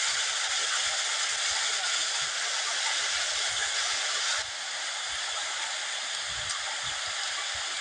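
Steady rush of stream water pouring over and between rocks, dropping a little in level about four and a half seconds in.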